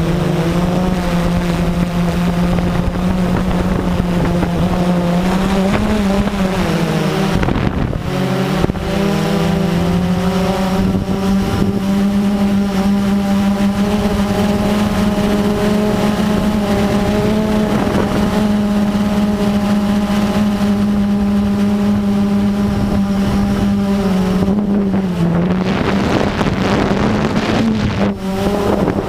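Blade 350QX quadcopter's brushless motors and propellers humming steadily at a loud, even pitch that wavers with throttle changes and briefly dips about a quarter of the way in. Wind rushes over the microphone near the end.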